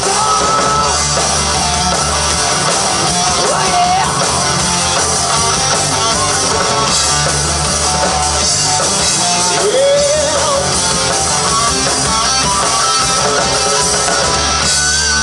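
Rock band playing live and loud through PA speakers: electric guitars over a heavy bass and drum backing, with a guitar line that slides up in pitch about two-thirds of the way through.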